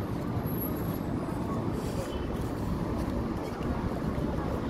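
Steady road traffic noise from cars driving by on a city street.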